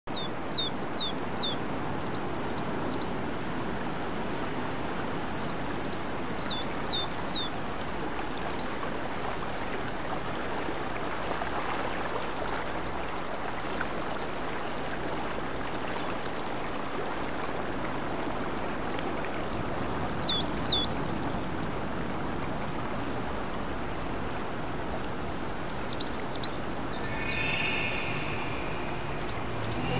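A small songbird calling in quick runs of high, falling chirps, six to eight notes a run, repeated every few seconds over a steady outdoor hiss.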